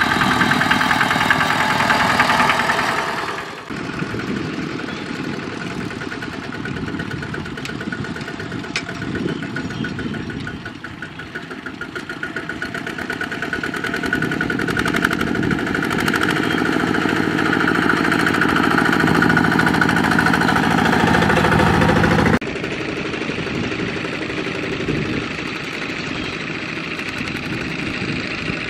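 Single-cylinder diesel engines of two-wheel walking tractors running under load as they pull loaded trailers, one growing louder as it comes close. The sound changes abruptly twice, about three seconds in and again near the end.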